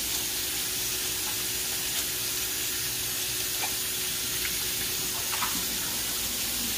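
Steady sizzle of chicken breast pan-searing in hot oil, with a kitchen tap running into a stainless steel sink as hands are washed under it.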